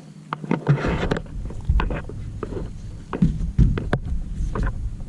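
Footsteps and scuffing on rough ground, with scattered knocks and clicks and a low rumble on the microphone from about a second in.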